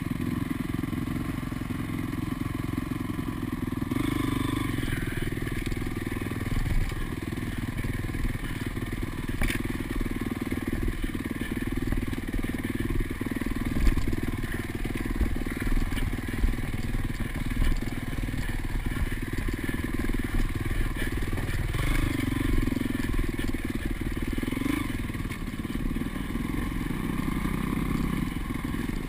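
2005 Honda CRF450 dirt bike's single-cylinder four-stroke engine running steadily as the bike rides a rutted dirt trail, with a few sharp knocks and clatter from the rough ground.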